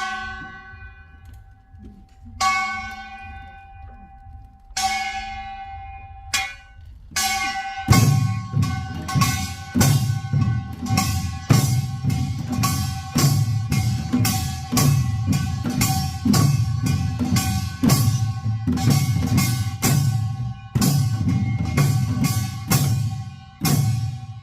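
Korean pungmul percussion: a ringing metal gong is struck a few times slowly, then about eight seconds in a group of buk barrel drums comes in with the gong in a fast, steady gilgunak processional rhythm of Yeongnam nongak.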